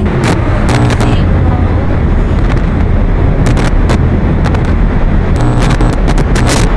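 Loud distorted glitch and static noise: a dense hiss over a deep rumble, broken by many sharp crackles and clicks.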